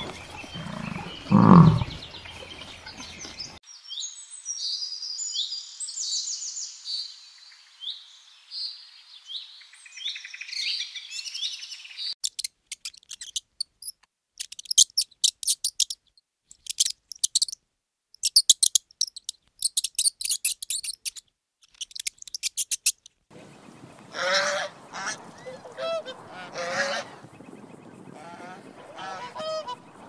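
A bison gives a low grunt about a second and a half in. Then come a run of high chirping calls and a stretch of rapid, sharp high clicks. In the last third, swans honk repeatedly.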